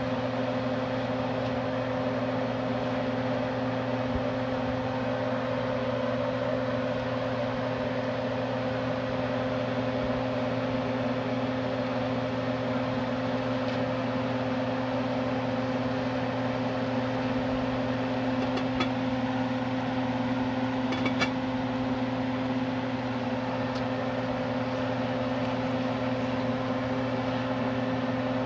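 Electric fan motor running with a steady, unchanging hum, with two faint clicks about two-thirds of the way through.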